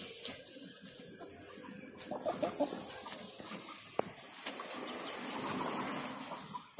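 Young hens clucking softly while foraging in loose soil, with rustling and a single sharp click about four seconds in.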